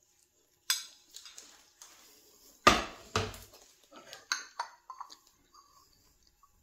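Cutlery and dishes clinking: a few separate sharp knocks, the loudest about three seconds in, then lighter taps with short ringing.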